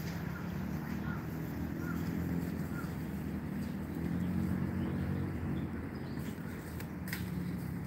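Outdoor ambience: a steady low rumble, with faint, scattered bird chirps above it and a single click near the end.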